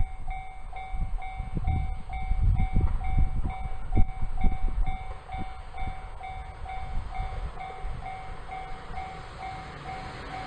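Japanese level-crossing warning bell ringing steadily, about three strikes a second, signalling an approaching train. Wind rumbles on the microphone underneath, and the rushing noise of the arriving electric train starts to rise near the end.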